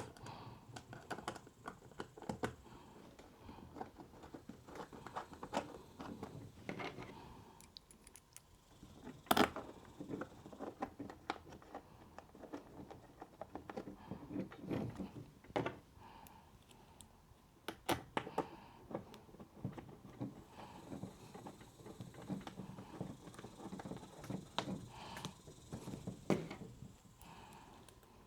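Light scattered clicks and knocks of small plastic and metal parts being handled as an Uhlmann fencing reel is put back together, with a few sharper clicks.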